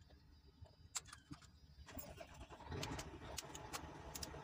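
Faint metallic clicks of a socket and wrench being fitted on a cylinder-head bolt. A low steady background noise comes in about two seconds in.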